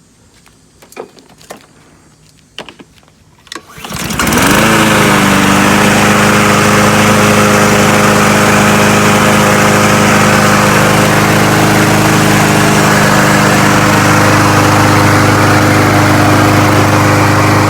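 Brand-new Craftsman M140 lawn mower's Honda GCV160 engine being pull-started for its first run. It catches on a single pull about four seconds in and then runs steadily at speed.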